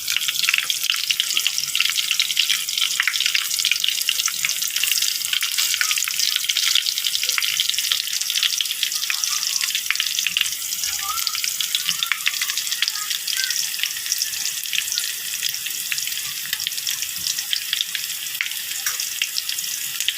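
Ham sizzling as it fries in a pan: a dense, steady hiss dotted with many small crackles and pops. It cuts off suddenly at the end.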